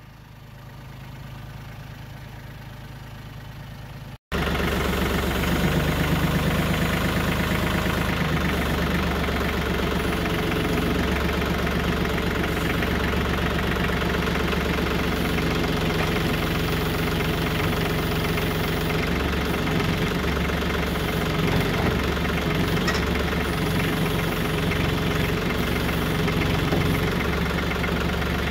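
A compact tractor diesel engine idling quietly for the first four seconds. After an abrupt cut, the Branson 2515 tractor's diesel engine runs steadily and much louder, heard close up from the seat, with a knocking clatter and a low hum that wavers while its front loader holds the brush cutter.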